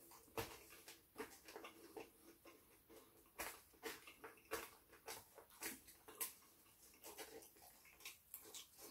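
Close-up eating sounds: chewing and wet lip smacks with scattered soft clicks of a plastic fork picking at doner kebab meat and chips in a takeaway tray. The sounds are quiet and come at irregular intervals.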